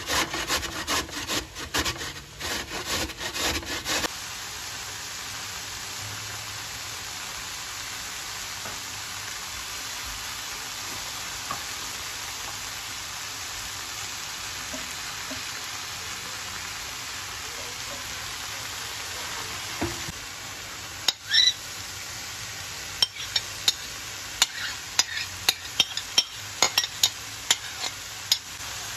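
Carrot grated on a stainless steel box grater, rapid rasping strokes for about four seconds. Then sliced leeks sizzle steadily in a frying pan as they are stirred with a wooden spatula. Near the end come a series of sharp taps as the spoon and spatula knock against the pan while the grated carrot goes in.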